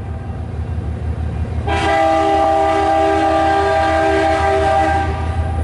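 CN freight train's locomotive horn sounding one long blast, a chord of several steady notes, starting about two seconds in and lasting about three and a half seconds. A steady low rumble from the train runs beneath it.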